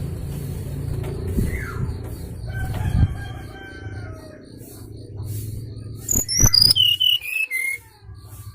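Lure call of a brown-chested jungle flycatcher, played to trap the bird: a quick run of high whistled notes stepping down in pitch, about six seconds in. It plays over a steady low rumble, and a rooster crows about three seconds in.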